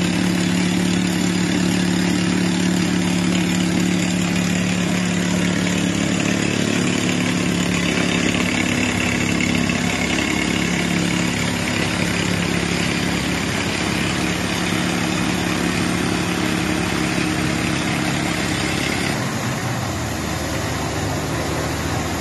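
Truck-mounted water well drilling rig running under load: a steady engine note with a loud rush of compressed air blowing dust and cuttings out of the borehole. The sound shifts near the end.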